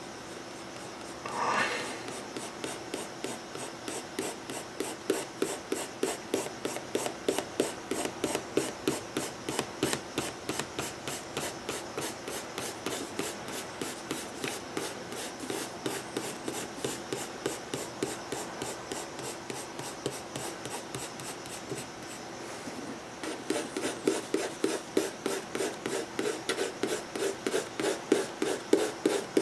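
Pencil scratching on sketchpad paper in quick back-and-forth shading strokes, a few a second. There is a short pause a little over twenty seconds in, then louder strokes.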